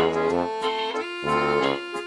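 Background music: an instrumental tune of held chords over a bass that comes in regular short phrases.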